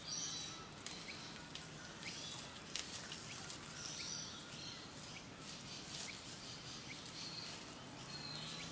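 Small birds chirping now and then in the background, with scattered scratches and rustles of dry leaf litter as brush-turkeys dig and peck at their nest mound.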